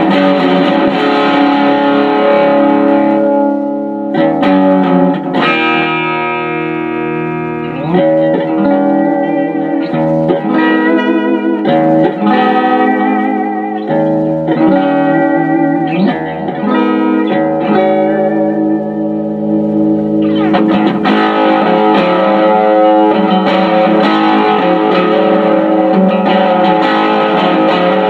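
Electric guitar, a home-built P90-equipped Les Paul Junior, played loud through a 1970s Unicord solid-state 2x10 combo amp turned wide open, the amp itself distorting. Chords and lead lines with long held notes and wavering vibrato.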